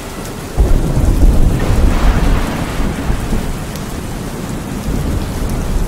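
Steady rain with thunder: a deep rumble breaks in suddenly about half a second in, eases off over a few seconds, and swells again near the end.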